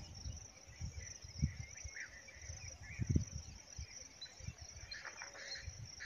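A steady high-pitched chorus of insects, with scattered short bird chirps over it and a few soft low thumps.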